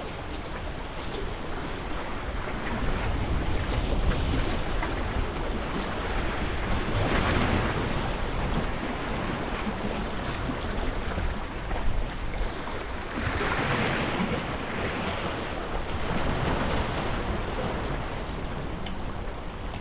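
Wind-driven lake waves splashing and washing against the shore, with wind buffeting the microphone. Two louder surges come about seven seconds in and again around thirteen to fourteen seconds.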